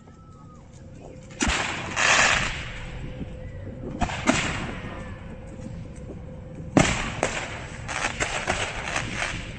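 Fireworks display: aerial shells bursting with sharp bangs, the loudest about seven seconds in, followed by a run of rapid crackling from crackle-effect stars.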